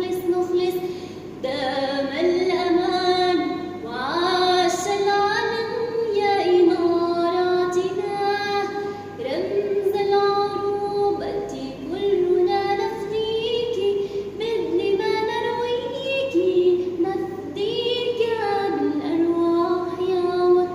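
A woman singing a slow melody, one voice holding long notes with sliding changes of pitch.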